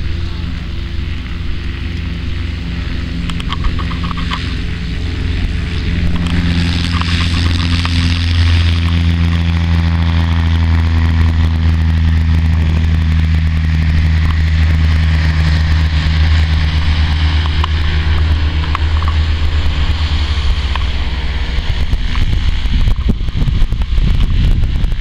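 Light tow plane's propeller engine running at full takeoff power as it pulls a glider aloft on a tow rope; a steady low drone that grows louder about six seconds in and then holds.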